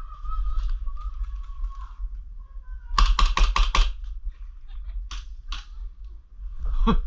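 Airsoft gun firing a quick burst of about seven shots, then a few single shots.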